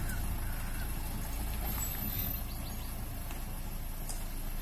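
Small tipper lorry's diesel engine running at low speed as the truck pulls away, a steady low rumble that dips slightly as it moves off.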